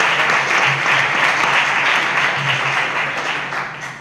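An audience applauding, the clapping fading out near the end.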